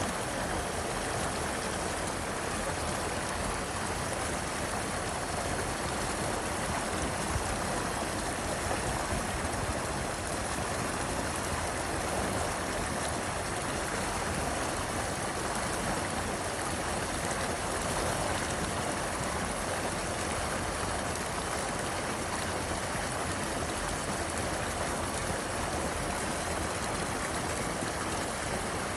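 River water running steadily, an even rushing sound that does not change.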